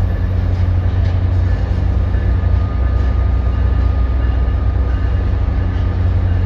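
Diesel-hauled commuter train departing: a loud, steady low diesel drone from an EMD GP40FH-2 locomotive, with the coaches rolling over the rails.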